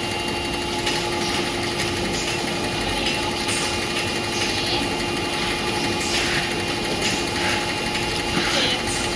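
An automatic stand-up pouch sorting, counting and boxing machine running: a steady mechanical hum, with a few short hissing sounds at irregular intervals.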